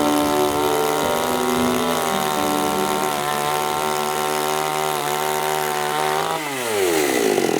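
JOBMATE 45cc two-stroke chainsaw engine running at a steady idle. About six seconds in, its pitch drops steadily as the engine runs down.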